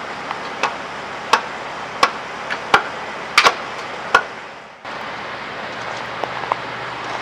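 Sharp wooden and metal knocks, about eight in the first four seconds, as wooden blocking and a bar are handled and set at the rail under a derailed locomotive's wheels. After that only a few faint ticks are heard over the outdoor background.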